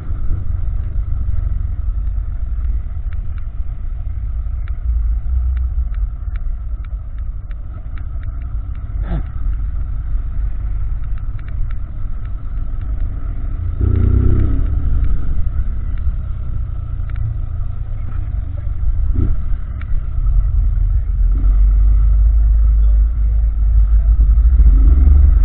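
Honda CG Titan 160 single-cylinder motorcycle running under way with an exhaust meant to sound like a BMW G 310, getting louder about halfway through and again near the end as it is pushed harder.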